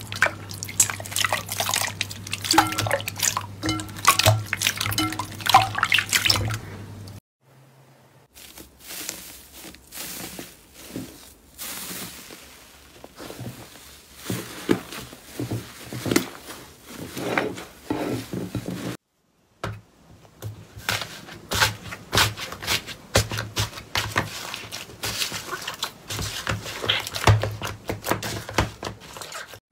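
Hands kneading and squeezing slime, making dense sticky squelches, crackles and pops. The slime is first a glossy clear yellow jelly slime, then a pink fluffy slime, then a blue cloud-like fluffy slime. The sound breaks off briefly twice, about 7 seconds in and about 19 seconds in.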